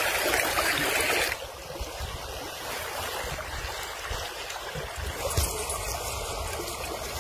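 Fast muddy river water rushing and splashing. It is loud for about the first second, then drops to a softer, steady flow with a low wind rumble.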